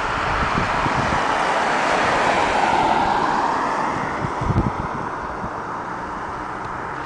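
A road vehicle passing: its rushing tyre and engine noise swells to a peak about three seconds in, drops in pitch, and fades away. Wind buffets the microphone in low thumps.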